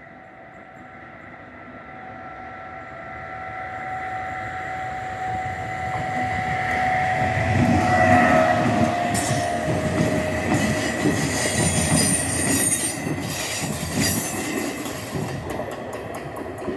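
A train passing over a level crossing. Its sound builds over several seconds, and a whine drops in pitch as it goes by about eight seconds in. A run of sharp wheel clicks over the rail joints follows as the cars pass.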